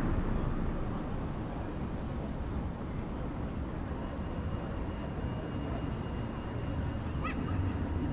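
Steady rumble of city road traffic, with no single vehicle standing out.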